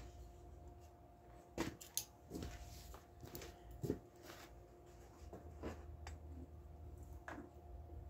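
Faint handling noises: a handful of short clicks and light knocks a second or two apart, over a faint steady hum, as oil is readied for the push mower's engine.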